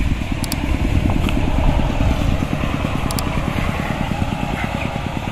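A steady low rumbling noise with a rapid, irregular flutter, like wind buffeting a microphone, and a couple of faint clicks.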